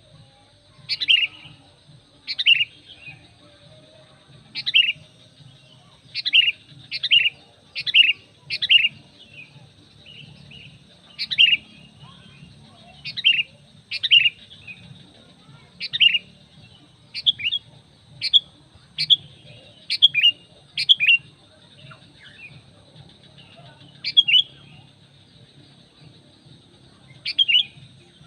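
Sooty-headed bulbul (kutilang) calling: short, sharp notes that drop in pitch, repeated about twenty times at uneven intervals, some in quick pairs. A faint steady high tone and a low hum lie underneath.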